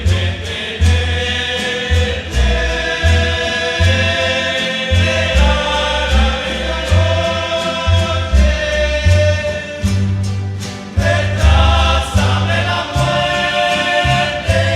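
A rondalla playing a ballad: strummed guitars in a steady rhythm over a plucked bass line, with several voices singing together in harmony.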